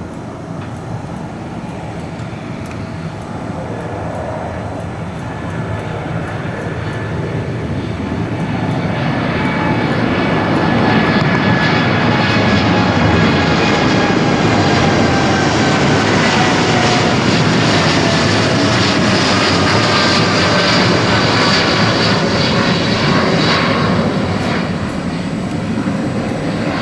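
Korean Air Boeing 787-9's GEnx-1B turbofans at take-off thrust, growing louder as the jet climbs out past. Through the loudest stretch a high engine whine falls slowly in pitch, and the noise eases off near the end.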